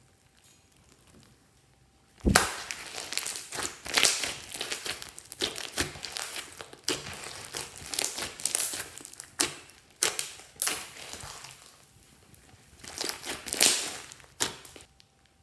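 Hands squeezing and kneading a large mass of glossy slime mixed with foam beads. The slime makes irregular wet squishing and clicking sounds that start about two seconds in and die away just before the end.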